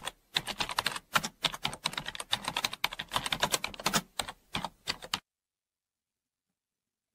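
Typing sound effect: a rapid, irregular run of keystroke clicks that stops about five seconds in.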